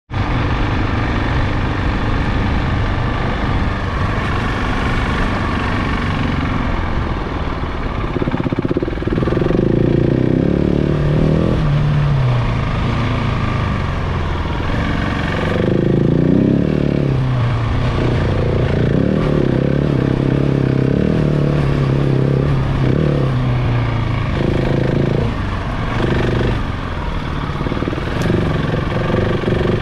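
KTM 690 Enduro's single-cylinder engine running under way, its pitch repeatedly rising and falling as the throttle is opened and closed. The first several seconds are steadier, and louder rises come from about nine seconds in.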